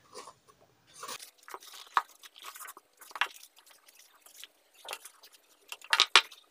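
Hands wrapping and knotting a stretchy cloth strip around a glued wooden box to clamp it: irregular rustling and small crackles of the fabric. A few sharper knocks come near the end.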